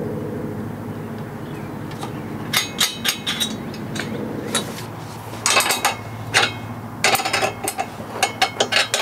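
Small steel hardware clinking: hex nuts and washers tapping against each other and the U-bolt as they are handled and threaded on by hand. The clinks come in several short runs of quick clicks.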